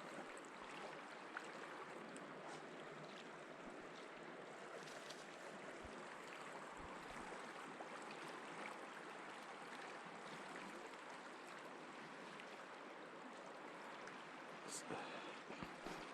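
Steady rushing of river water flowing past the bank, with a few faint clicks near the end.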